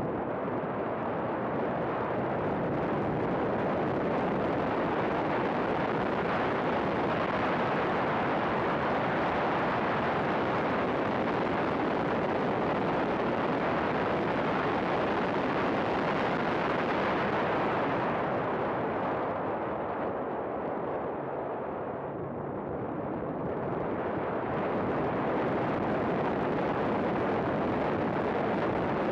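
Race car at speed on track: a dense, loud mix of engine and wind noise that eases for a few seconds about twenty seconds in, then comes back up.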